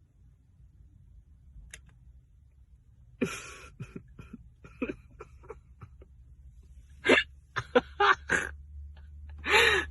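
A person's stifled laughter in short, sudden bursts of breath and voice, starting about three seconds in and bunching together near the end, over a low steady hum.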